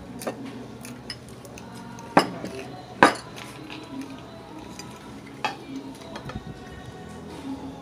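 Metal fork and knife clinking and scraping on a glass plate during eating, with two sharp clinks about two and three seconds in (the second the loudest) and a lighter one a little past five seconds.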